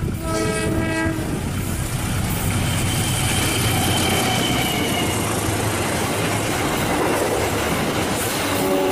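A diesel-electric locomotive hauling a passenger train sounds its horn briefly, about a second long, as it approaches. The train then passes close by with a steady engine rumble and the noise of its wheels on the rails, with a faint high squeal a few seconds in.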